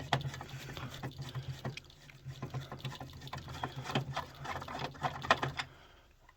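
Plastic clicks, scrapes and rattles from a System Sensor L-Series horn/strobe being handled and taken off its mount to change its tone setting. A low steady hum underneath stops near the end.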